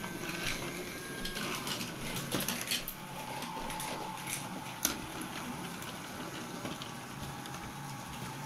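Small electric motors of battery-powered Brio toy trains whirring steadily on wooden track, with a few sharp clicks of wheels and wagons on the track. A lower-pitched whine takes over about three seconds in.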